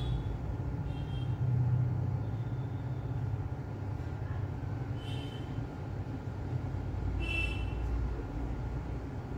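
Steady low background rumble, with a few short high-pitched chirps near the start, about five seconds in and again about seven seconds in.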